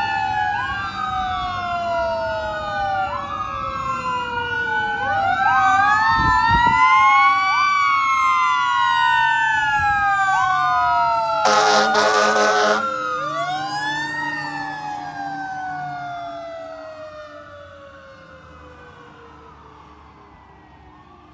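Fire engine sirens wailing in several overlapping sweeps that rise and fall. One air horn blast lasts about a second near the middle. The sirens fade over the last few seconds.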